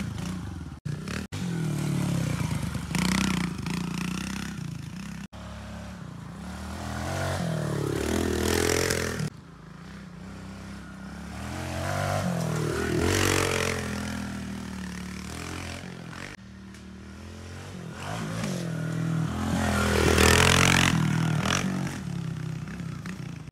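Kawasaki KLX110 pit bike's small single-cylinder four-stroke engine revving up and down as it rides a dirt track. It grows loud three times as the bike comes close and fades in between.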